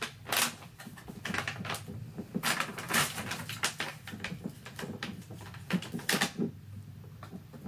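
Crinkling and rustling of a dog-treat pouch being handled and torn open by hand, irregular crackles with a few sharper snaps.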